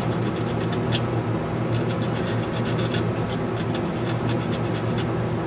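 A small file scraping a resistor's old wire lead in quick, light strokes to clean off oxidation, over a steady low hum.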